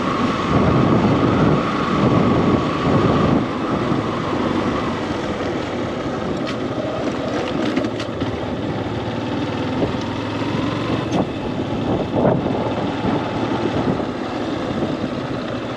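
Motorcycle engine running as the bike rides along a road. The engine note is louder at first and eases off about three and a half seconds in, then holds steady.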